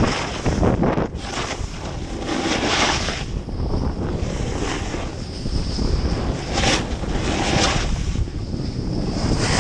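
Wind buffeting the camera microphone while skiing fast downhill, with skis hissing and scraping over the snow in surges through the turns.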